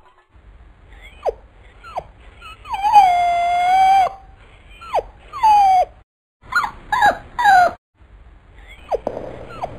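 A cartoon dog whining in short, high cries that slide downward. It gives one long, held howl about three seconds in, and a quick run of whines around seven seconds in.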